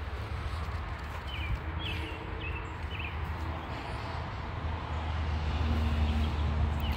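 Footsteps crunching through dry fallen leaves, with a few short bird chirps about two seconds in. Under them runs a low steady rumble that grows louder over the last couple of seconds.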